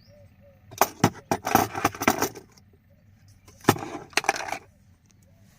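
Hard objects clattering and clicking as they are handled, in two bursts of rapid knocks a second or so apart.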